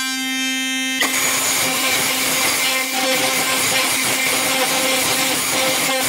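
Modified Philips Sonicare electric toothbrush, its pick blade buzzing with a steady hum. About a second in, the vibrating pick goes into a deadbolt's keyway and a loud, harsh metallic rattle of the tip against the lock pins joins the hum, as it is used to pick the lock.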